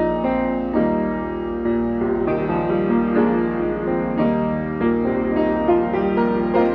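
Mason & Hamlin Model BB grand piano, unrestored, being played: chords struck about every three quarters of a second, each ringing on into the next.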